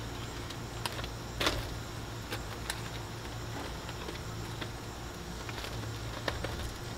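Metal grill tongs clicking and scraping against a gas grill's grate while food is turned, a few sharp clicks with the loudest about a second and a half in, over a steady low hum.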